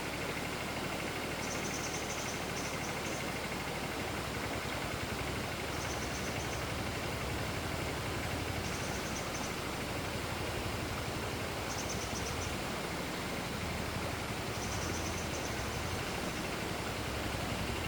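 A forest stream flowing steadily, an even rushing of water with a low rumble underneath. Short high chirps recur about every three seconds over it.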